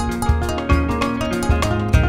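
Background music with a steady beat, pitched instruments over drums.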